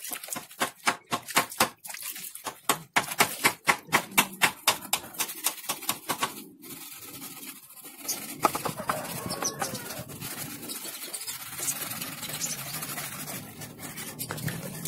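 A hand rubbing wet soapy foam over a motorcycle fender panel: quick rhythmic strokes, about three a second, for the first six seconds, then a more even rubbing noise.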